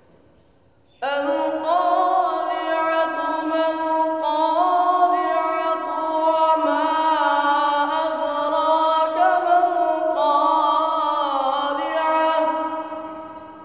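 A boy's voice reciting the Quran in a melodic qirat style: one long held phrase that starts about a second in, with the pitch gliding and turning in ornaments, and that ends near the end, its sound dying away slowly in the room's echo.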